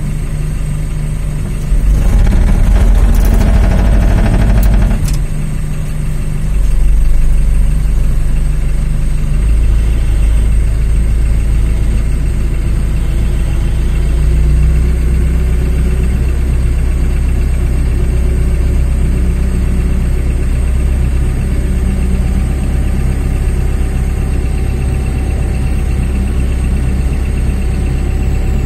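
Aircraft pushback tow tractor's engine running under load while pushing the airliner. It surges louder about two seconds in for a few seconds, then settles into a steady low drone. A thin, steady high whine sits above it.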